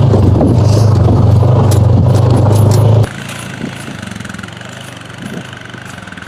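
Honda Pioneer 500 side-by-side's engine running steadily, then cutting off abruptly about three seconds in, leaving a much quieter steady background.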